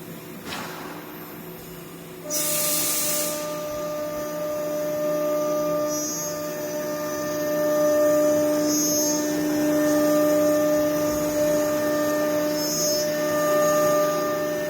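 A CNC machine running with a steady multi-tone whine that starts sharply about two seconds in with a short burst of hiss, followed by a few brief high hisses.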